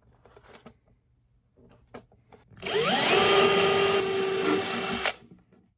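Power drill working the plastic of a desk phone's kickstand. It spins up with a rising whine about two and a half seconds in, runs steadily for about two and a half seconds, then stops abruptly. A few light handling clicks come before it.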